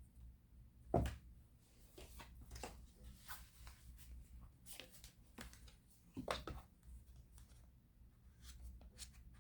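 Small objects handled by hand: a scattering of light clicks, taps and rustles, with two louder knocks about a second in and near six seconds in.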